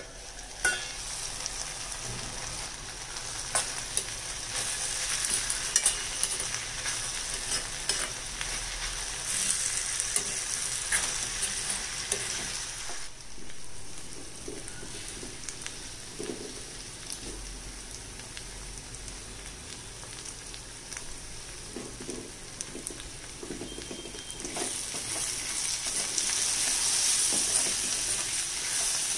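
Cluster beans sizzling as they fry in a steel kadai, with a spatula scraping and clinking against the pan as they are stirred. The sizzle dips briefly about halfway through and grows louder near the end.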